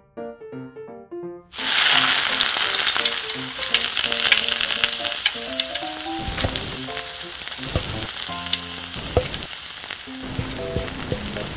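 Floured chicken pieces go into hot oil in a small steel pan about a second and a half in: a sudden loud sizzle that eases into steady deep-frying with crackling pops, stirred with a wooden spoon.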